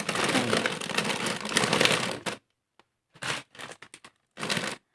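Plastic snack bags crinkling and rustling as they are handled and packed away, steady for about two seconds, then a few short rustles.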